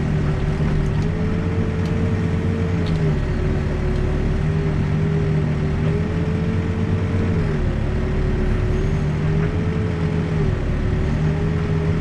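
Backhoe's diesel engine running steadily, heard from the operator's cab, with a hydraulic whine that rises a little and drops back every few seconds as the boom and bucket are worked to trim the trench wall.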